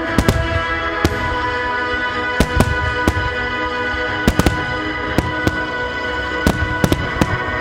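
Aerial firework shells bursting: a dozen or more sharp bangs at irregular intervals, some in quick pairs and triplets. Steady music plays underneath.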